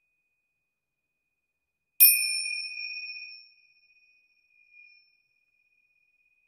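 Small metal chime struck once, sending out a high, clear ring that fades away over a couple of seconds, rung as a sound cleansing of a card deck. A faint ring from an earlier strike trails off at the start, and a soft light touch sounds briefly near the end.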